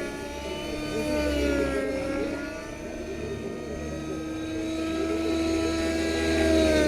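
Nitro RC helicopter in flight, its O.S. 55 HZ-H two-stroke glow engine and rotor whining. The pitch dips about two seconds in, then rises again, and the sound is loudest near the end.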